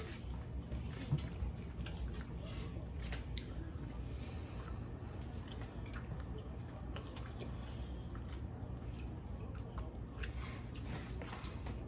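Faint wet chewing and mouth clicks as a fruit roll-up strip is drawn into the mouth and chewed, over a steady low hum.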